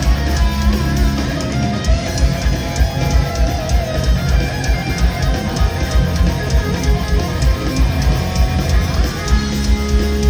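Loud live heavy metal band: distorted electric guitar playing a lead line over a fast, driving drum beat and bass.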